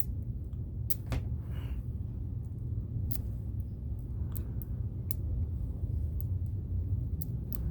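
Sharp, irregular metallic clicks from a TSA luggage lock being worked with a pick, about eight of them spread over several seconds, over a steady low rumble.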